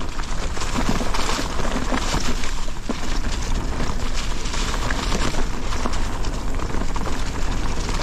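An e-mountain bike rolling fast downhill over a leaf-covered dirt trail: steady tyre noise crackling over dry leaves, with many small knocks from the bike over bumps and a low wind rumble on the microphone.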